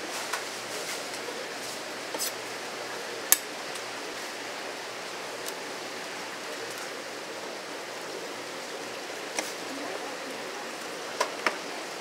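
Knife and cutting-board knocks and clinks as a large yellowtail is cut for sashimi: a handful of sharp, scattered strikes, the loudest about three seconds in, over a steady hiss.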